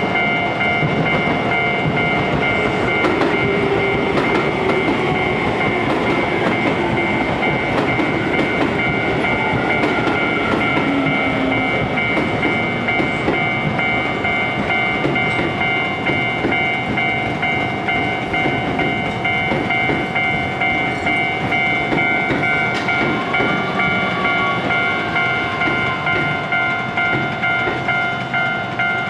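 Japanese level-crossing alarm bell ringing in a steady pulsing rhythm while Keio Line electric trains pass over the crossing, wheels clacking on the rail joints. An electric train's motor whine falls in pitch early on, and another rises about three quarters of the way in.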